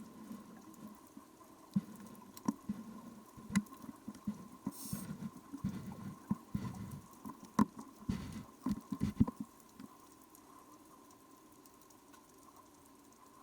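Underwater sound on a scuba dive: bubbly low rumbles come in bursts, loudest between about four and nine and a half seconds in, mixed with scattered sharp clicks and knocks. A faint steady tone sits underneath throughout.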